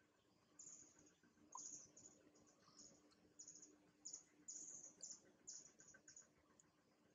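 Faint forest ambience: about a dozen short, high-pitched chirps at an uneven pace over a faint steady low hum.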